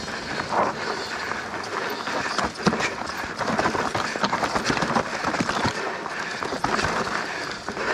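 Mountain bike ridden fast down a rocky dirt trail: tyres rolling and crunching over dirt and loose rock under a steady rush of noise, with frequent sharp knocks and rattles as the bike hits rocks.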